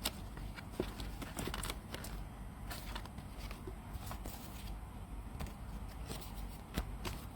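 Faint scattered rustles and clicks of paper being handled and folded.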